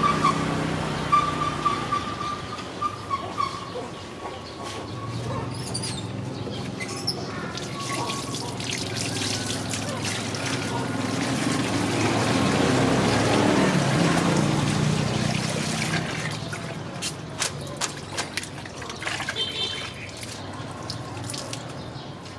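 Water splashing and trickling in a plastic basin as a hand swishes through it, swelling loudest midway, then scattered splashes and drips. A short high-pitched call is heard near the start.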